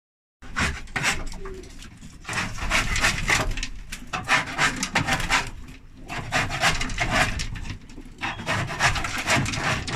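Hand scraper scraping wooden nest-box shelving in quick rasping strokes, in runs of a second or two with short pauses between.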